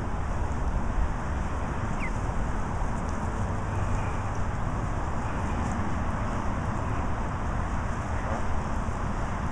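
Steady outdoor background noise, a low rumble with hiss, and a faint short falling chirp about two seconds in.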